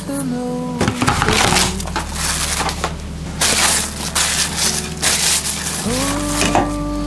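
Plastic cling film crinkling and crackling in repeated bursts as it is stretched over a stainless steel bowl and pressed around its rim. Background music slides down in pitch and drops out about a second in, then slides back up and returns near the end.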